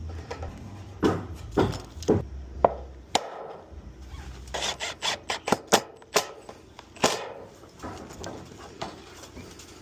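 Sharp knocks and some scraping on wood as a roof hip cap is fastened. There are a few separate strikes, then a quick run of about eight in a row just past the middle, and one more after it.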